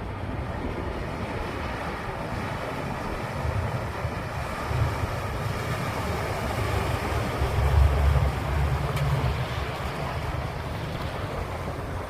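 Wind buffeting the microphone in irregular gusts, strongest about eight seconds in, over a steady rushing hiss.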